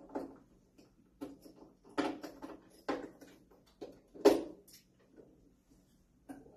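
Handling of a clear plastic lottery drum full of folded paper tickets: irregular rustling of the tickets and clicks and knocks of the drum's hatch, with one sharp knock a little past the middle.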